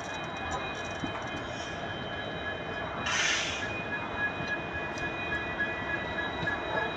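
Passenger express train running on the track, with a steady high-pitched squeal and a short hiss about three seconds in.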